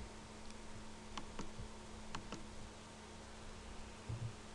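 Faint clicks of a computer mouse and keyboard as faces are selected with right-clicks and Shift+right-clicks: about five sharp clicks in the first two and a half seconds, then a couple of duller thumps near the end, over a faint steady hum.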